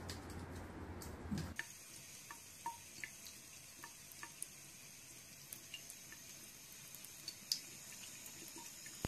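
Bathroom sink faucet running a thin stream of water into the basin, a quiet steady hiss with scattered small drips and plinks. For the first second and a half there is a low room hum instead, which cuts off.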